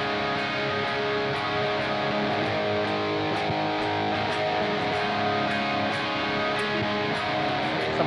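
Guitar played through a Nux C-5RC 5.8 GHz wireless transmitter into a Positive Grid mini amp, strumming chords steadily. The signal holds without a single dropout during the walking range test.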